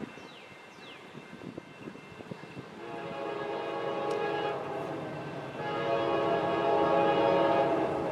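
Diesel freight locomotive's air horn sounding a chord of several notes in two long blasts, starting about three seconds in; the second blast is louder.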